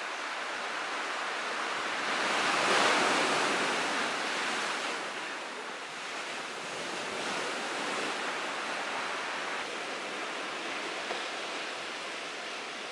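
Sea waves breaking on the shore: a steady wash of surf that swells about two to three seconds in and again more gently around eight seconds.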